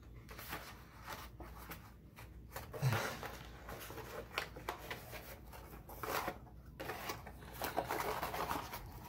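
Stiff cardstock rustling and rubbing in short, scattered scrapes as hands bend it and press it into shape.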